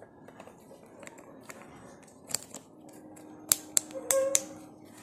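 Plastic clicks and rattles of a helmet chin-strap buckle and strap being worked by hand, with a few sharp clicks about three and a half to four seconds in.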